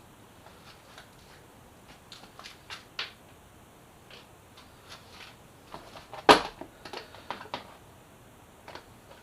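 Scattered small clicks and taps of plastic motorcycle fairing trim and its screws being worked loose by hand, with one sharper knock a little past the middle.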